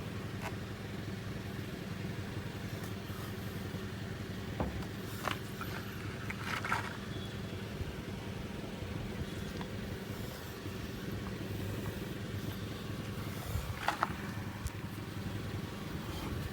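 A steady low engine-like hum, as of a vehicle idling, with a few short faint scrapes and clicks as the plug insertion needle is worked out of the tire.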